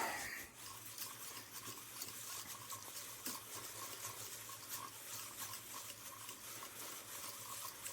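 Faint, irregular light ticking and rustling of a Corona 4 typewriter ribbon spool turned by hand to wind on ribbon. Wound from the non-drive side, it makes no gear clicking.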